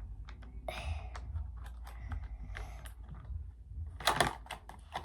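Small batteries being worked out of their plastic pack by hand: a run of sharp clicks with short rustles of packaging, the loudest a little after four seconds in.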